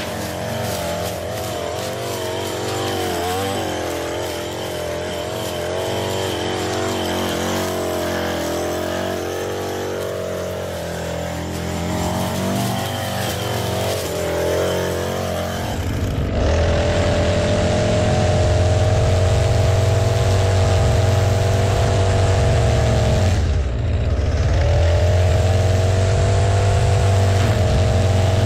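Echo two-stroke string trimmer running at high revs as its line cuts grass, the engine pitch wavering up and down. About halfway through it turns louder and steadier while edging along a concrete sidewalk, with one brief dip in revs late on.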